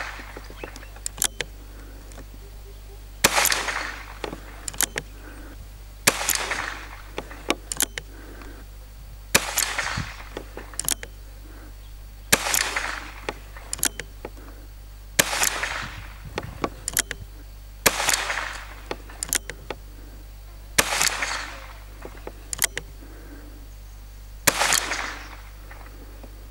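Alfa Carbine .22 LR revolver carbine firing slow, aimed single shots, eight in all, about three seconds apart, each a sharp crack with a short echo. Fainter sharp clicks come between the shots.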